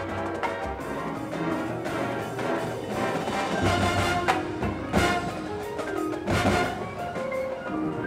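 High school marching band playing its field show: sustained chords over percussion, with sharp percussion accents about four and five seconds in.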